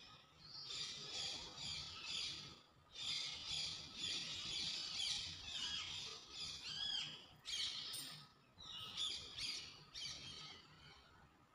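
Small birds chirping in repeated bursts of high twittering calls.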